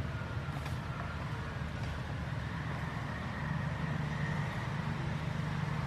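Steady low outdoor rumble, a little louder from about halfway through.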